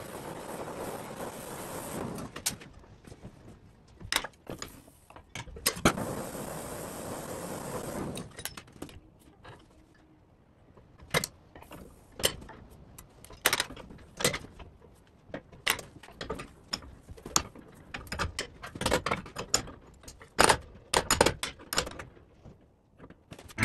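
Oxy-fuel torch hissing steadily as it heats a steel bar in a vise, stopping at about two and a half seconds and running again from about six to eight seconds. After that come many short, sharp metallic clinks and clanks as a wrench and hand tools work the hot bar.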